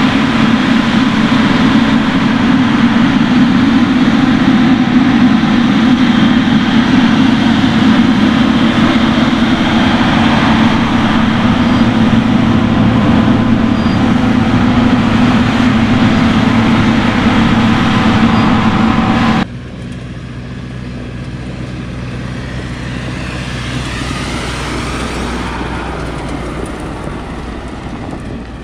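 Heavy diesel farm machinery running steadily. About two-thirds of the way through, the sound cuts abruptly to a quieter machine sound that slowly swells and then fades.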